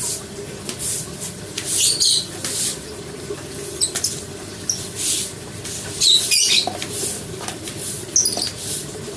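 Repeated scrubbing strokes of a brush on an animal cage, a short hissing rasp roughly every half second to second, with a few high squeaks about 2, 6 and 8 seconds in.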